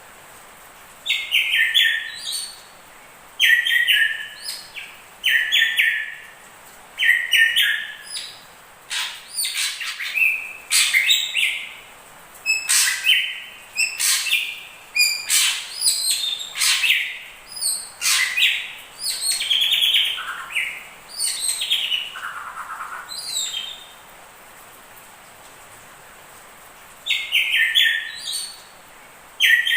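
Drongos singing, hair-crested and ashy drongo song mixed together: loud, varied phrases of whistles and chattering notes, one every second or two. They pause for a few seconds and start again near the end, over a steady faint hiss.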